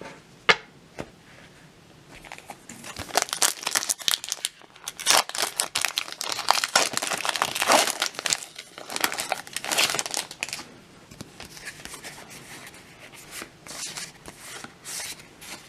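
Foil trading-card booster pack wrapper being torn open and crinkled by hand, a dense run of crackling and tearing from a couple of seconds in until about ten seconds in, with softer handling sounds after.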